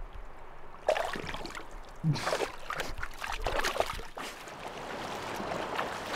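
Water splashing in a shallow river, with sharp splashes about one and two seconds in and more irregular splashing after, over the steady rush of the stream.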